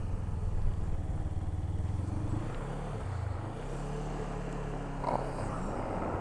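Motorcycle engine running while riding. About three and a half seconds in, its rumble eases into a steadier, quieter note as the bike slows.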